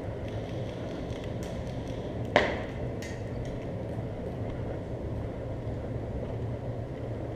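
A single sharp crack about two and a half seconds in, over a steady low rumble.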